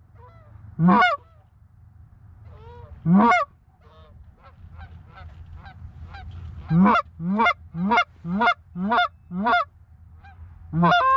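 Goose call blown in short honks that rise in pitch: single honks, then a quick run of about seven, calling to incoming Canada geese, with fainter honks in between.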